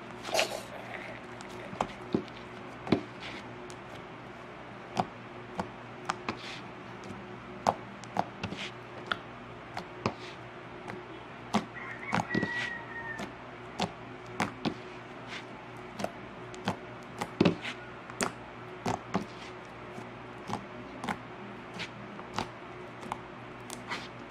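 Sticky purple fluffy slime squished, poked and kneaded by hand, giving irregular sharp pops and clicks about once or twice a second. It is under-activated and still quite sticky.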